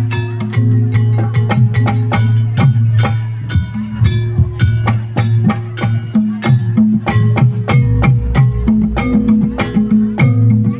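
Javanese gamelan ensemble playing gending srampat for jaranan: bronze metallophones (saron, demung) striking ringing notes in quick succession over a sustained low tone and kendang drum strokes.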